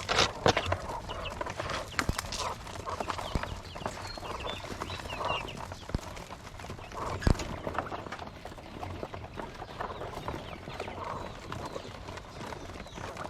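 Penned quail chirping and calling, with many short sharp taps and knocks among them; the loudest knock comes about seven seconds in.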